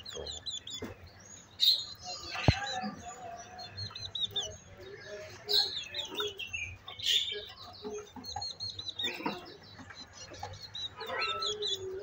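A cage of small songbirds chirping, with short, high twittering calls overlapping throughout. There is one sharp click about two and a half seconds in.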